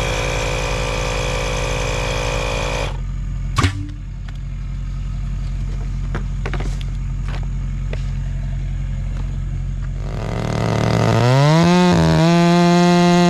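Engine running steadily, then cutting to a lower, quieter run about three seconds in with a sharp knock and a few clicks. Near the end it revs up in a rising whine, dips briefly and holds at high speed.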